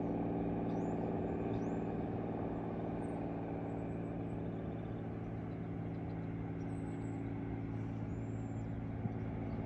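An unseen truck engine running steadily at a distance, a low drone with an even pitch that eases a little midway and builds again near the end. Faint high chirps sound above it.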